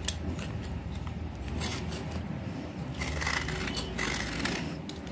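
Knife blade scraping the outer layer off a water-soaked block of red clay in repeated rasping strokes. The surface layer is still hard and not yet soft enough to come away.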